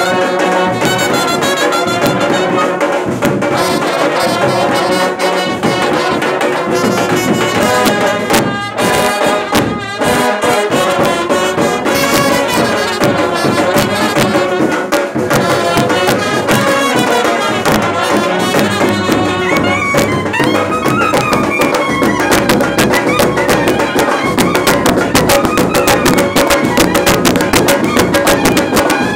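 Indian brass band playing: brass instruments carry a melody over steady drumming, the drum strokes growing denser in the second half.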